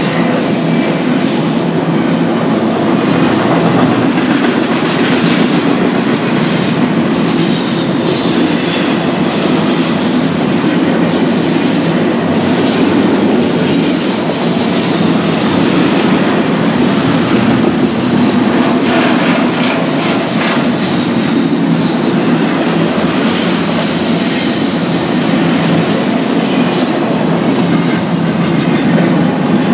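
Cars of a BNSF intermodal freight train rolling past: a steady loud rumble of steel wheels on rail, with repeated clicks as the wheels cross rail joints and a brief faint high wheel squeal about a second in.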